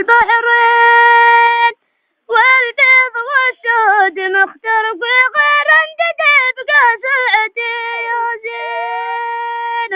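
A boy sings a Razihi mawwal unaccompanied in a high voice. He holds long notes and links them with quick ornamented runs, and breaks off briefly about two seconds in.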